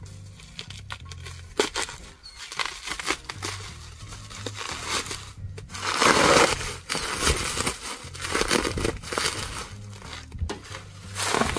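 Bubble wrap and plastic packaging crinkling and tearing as a driveshaft is unwrapped by hand, in irregular rustles with the loudest burst about six seconds in.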